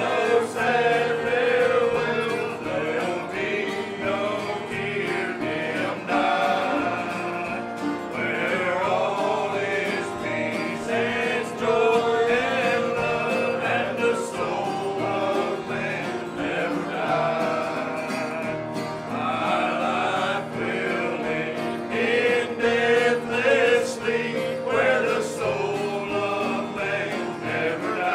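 A gospel hymn sung by a group of men's voices together, accompanied by strummed acoustic guitar.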